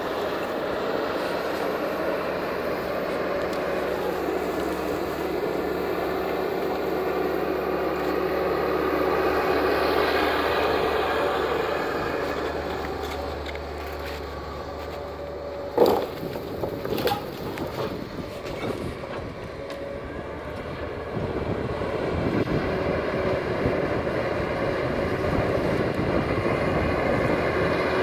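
Timberpro 840B forwarder's diesel engine running steadily, with a sharp loud knock about sixteen seconds in and a few smaller knocks after it; the engine sound grows rougher and louder near the end.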